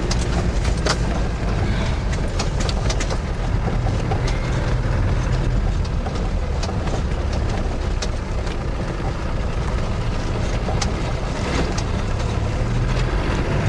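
Land Rover Defender 90's 300Tdi diesel engine running steadily while driving, heard from inside the cab. Frequent small knocks and rattles come from the vehicle over the rough, rutted track.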